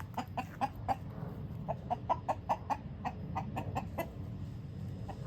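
Chicken clucking in a quick run of short, sharp clucks, about three or four a second with a brief pause about a second in: the agitated alarm clucking of a rooster being chased.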